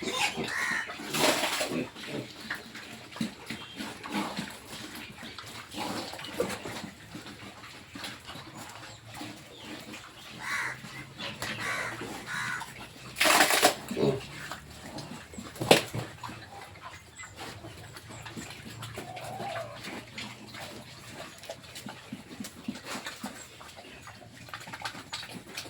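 Pigs grunting and calling in their pens, with one loud squeal about halfway through and a sharp knock shortly after.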